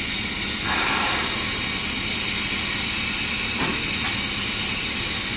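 Steam hissing steadily as it blows off from the top of the boiler of a standing Shay geared steam locomotive.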